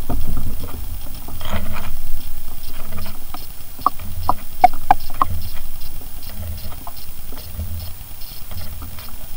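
A small bass being landed and unhooked on a bass boat. Low, uneven rumbling bumps recur throughout, and a quick run of about six sharp clicks comes four to five seconds in while the fish is held.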